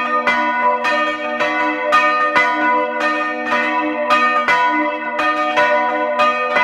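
Church bells rung by hand in the belfry, struck in a steady rhythm of about two strokes a second, their ringing tones overlapping and sustaining between strokes.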